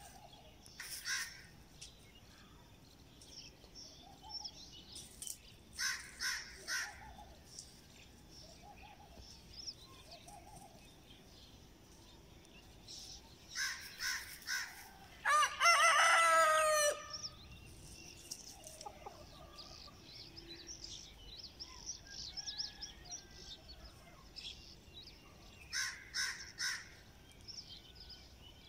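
A rooster crows once about halfway through, one long crow that is the loudest sound. Around it come short bird calls, several in pairs.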